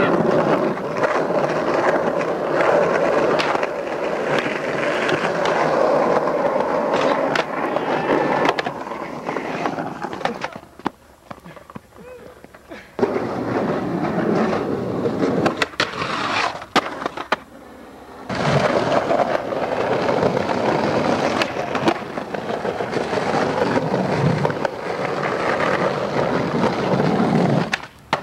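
Skateboard wheels rolling on pavement, broken by sharp clacks of the board popping and landing. The rolling drops away for a couple of seconds near the middle and again briefly later, then picks up again.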